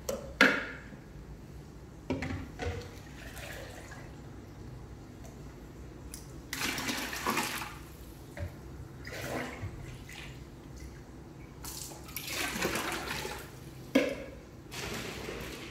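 Water poured from a plastic dipper into an aquarium, splashing in two longer pours, with a few sharp knocks of plastic against plastic.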